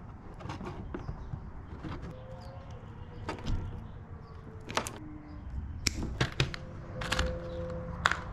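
Small clicks and rattles of hand work on electrical wiring, as wires, plastic crimp connectors and pliers are handled. There are a handful of sharp clicks about a second apart over a faint low hum.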